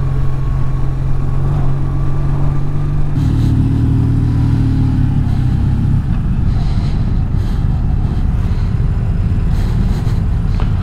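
Motorcycle engine running under way, heard from the rider's own bike, with a steady rush of noise; about three seconds in the engine note drops as the bike slows for a junction.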